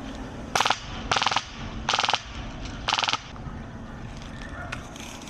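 Airsoft rifle firing four short full-auto bursts of rapid clicks within about three seconds, the first the briefest.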